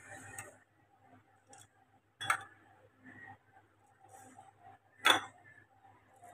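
A metal spoon clinking against glass spice jars while whole spices are scooped out. There are two sharp clinks, one a bit over two seconds in and one about five seconds in, with faint small taps between.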